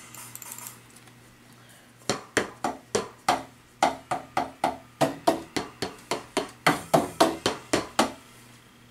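A run of about twenty single drum strikes at roughly four a second, starting about two seconds in and stopping shortly before the end, played one at a time on an electric drum kit to test the triggered sound.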